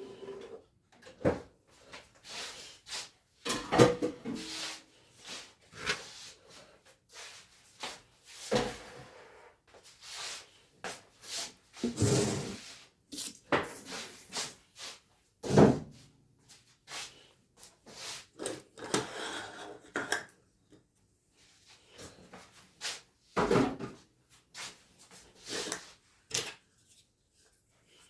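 Kitchen clean-up after baking: an irregular run of knocks, clacks and rubbing as things are handled, set down and put away. The loudest knocks come about four seconds in, around twelve and sixteen seconds, and again near twenty-four seconds.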